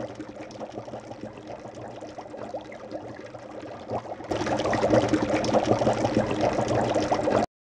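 Hot pot broth boiling in a divided metal pot, a steady bubbling that grows louder about four seconds in and cuts off suddenly near the end.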